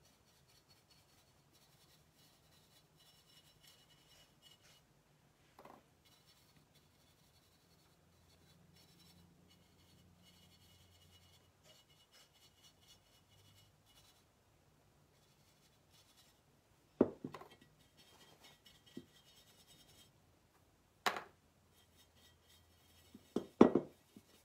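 Stiff chip brush scrubbing and dabbing acrylic paint into the ridges of a ceramic tree, a faint scratching. Three sharp knocks break in during the last third, loudest as a quick double knock near the end.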